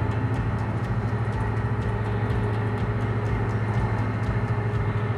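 A timber barge's engine running steadily at constant speed: a deep, even hum that neither rises nor falls.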